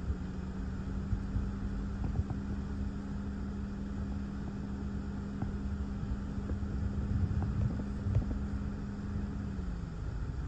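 Gusty thunderstorm outflow wind rumbling against the microphone, with scattered small ticks. A steady low hum runs under it and slides down in pitch and stops near the end.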